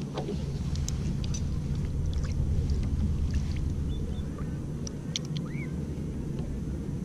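Low, steady rumble of wind buffeting the microphone, with a few faint clicks over it.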